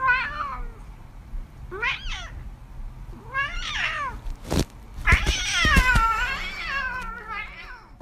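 Ginger cat meowing about five times, each call rising and falling in pitch; the longest, about five seconds in, draws out for nearly two seconds. A few dull knocks come in the middle.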